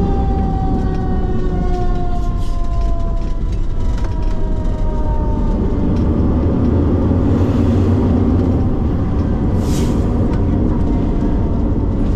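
Fire engine's siren winding down, its pitch falling slowly and fading out over the first five seconds or so, over the steady low rumble of the truck running. A short hiss about ten seconds in.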